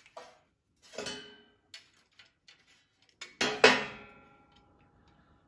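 Small metal clicks and ticks as carburetor linkage and parts are handled on a small engine. About three and a half seconds in comes one loud metallic clank of a tool or part, which rings briefly and fades.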